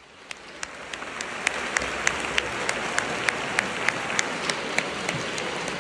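Audience applause, swelling over the first second, with sharp individual claps standing out above it at a steady pace of about three a second.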